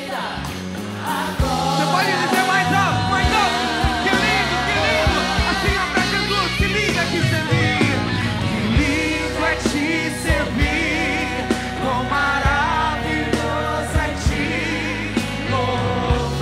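Christian worship song: singers and the congregation sing over a band with bass and drums.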